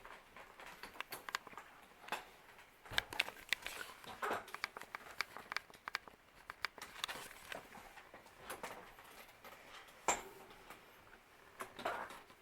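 Scattered light clicks and knocks with brief rustling, coming irregularly.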